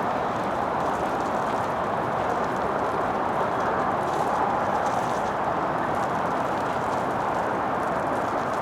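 Steady, even rushing noise of a storm ambience, with no distinct events.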